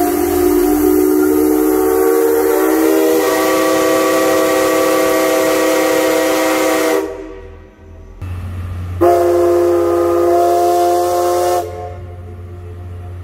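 Loud steam-locomotive chime whistles: D52 No. 70's whistle sounds one long blast of several tones together, sliding up into pitch as it opens and held for about seven seconds. After a short break comes a hiss of steam, then a shorter blast of about two and a half seconds from C61 No. 20's whistle.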